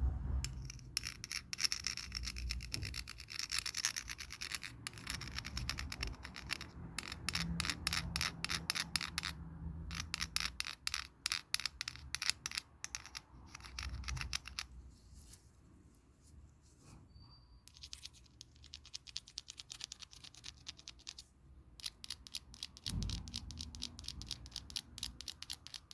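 Quiet handling noise: scratching and rubbing with rapid runs of small clicks, as a wristwatch and its packaging are handled. It stops for a couple of seconds about fifteen seconds in, then resumes more sparsely.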